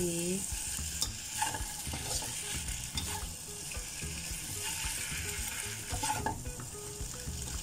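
Spatula stirring and scraping flat rice noodles around a stainless steel wok, with a light sizzle of frying under frequent irregular clacks of the spatula on the pan.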